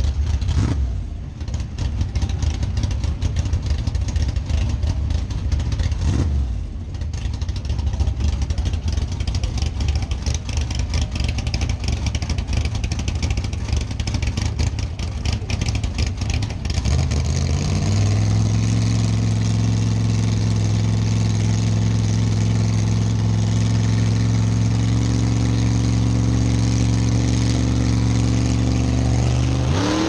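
Drag-race car's engine running with a rough, choppy beat, then a little over halfway through brought up to a steady, held rpm as the car stages. Right at the end the pitch rises sharply as the car launches.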